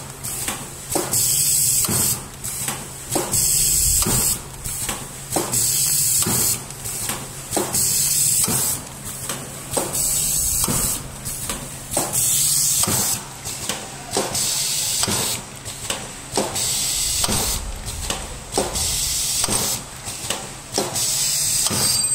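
Single-lane hair-mask sachet packing machine running, its pneumatic cylinders giving out short bursts of air hiss again and again in a steady rhythm, with mechanical clicks at each stroke.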